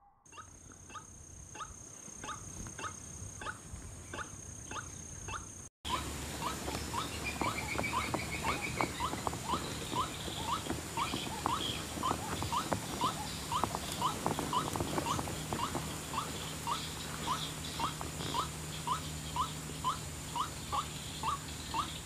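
White-breasted waterhen call: a short rising note repeated evenly, a little over twice a second, broken by a brief gap about six seconds in.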